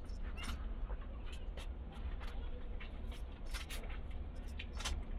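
A cow being milked by hand: short, irregular squirts of milk, roughly two a second, over a steady low rumble.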